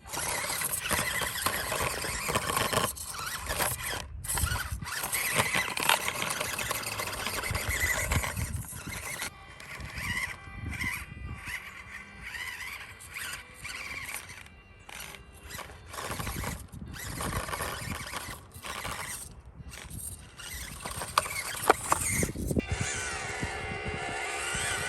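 Electric RC rock crawler driving, its motor and gears whining up and down in pitch as the throttle is worked and cut, with the tyres scrabbling over the ground.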